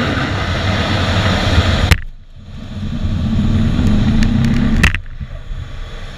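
Jet engine noise heard inside a fighter cockpit during an aircraft carrier catapult launch: a loud, steady rumble with sharp clicks about two and five seconds in, dipping briefly after the first and falling quieter after the second.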